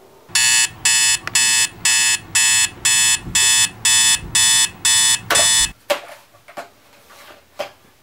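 Digital alarm clock beeping in loud, buzzy pulses, about two a second, going off to wake a sleeper; it cuts off suddenly after about five seconds. A few faint knocks and rustles follow.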